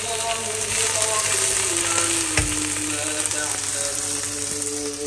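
Chopped okra frying in hot oil in a nonstick pan, sizzling steadily as it is stirred with a spatula, with one sharp knock about halfway through.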